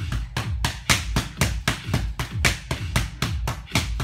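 Boxing gloves smacking into focus mitts in a rapid, continuous flurry of punches, about five or six sharp slaps a second.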